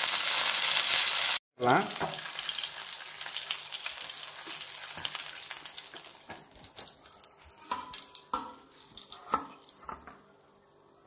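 Whole tilapia (jalebi fish) shallow-frying in oil, sizzling. A metal spatula scrapes and taps against the pan as the fish is turned and lifted, and the sizzle fades away over the second half.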